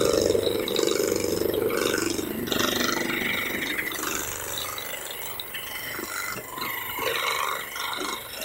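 A person's long, drawn-out groan of relief after a chiropractic adjustment, fading out about two seconds in, followed by quieter scattered shuffling noises.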